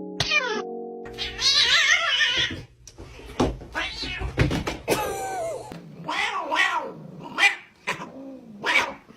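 Cats yowling in a fight: one long wavering yowl, then a string of separate yowls and meows that bend up and down in pitch. A short held musical chord is heard before the cat sounds start.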